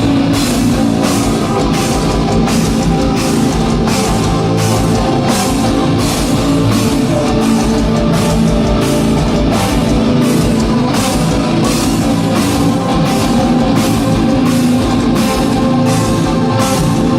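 Heavy metal band playing live: distorted guitars and a drum kit, with a steady crashing beat about twice a second. The music stops abruptly at the very end.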